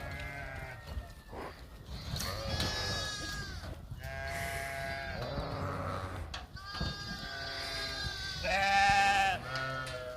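Several goats bleating, a string of long, overlapping calls at different pitches, the loudest near the end.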